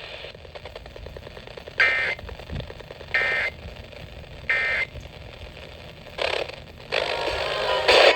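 Emergency Alert System SAME data bursts over a radio broadcast: three short, identical, buzzy warbling bursts about a second apart, over a background of static and hiss. Near the end, louder radio audio comes in.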